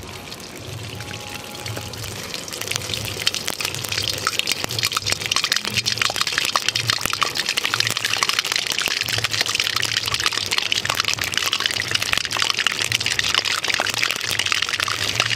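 Toothpaste frying in hot oil in a kadhai: the oil sizzles and crackles, building up over the first few seconds and then holding steady, the same as when pakoras are fried. Background music with a low steady beat runs underneath.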